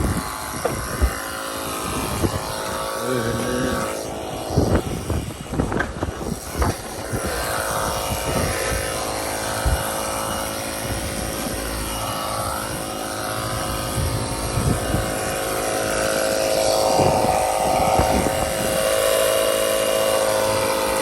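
A small motor drones steadily at one held pitch, with scattered knocks and handling noises over it; it cuts off suddenly at the end.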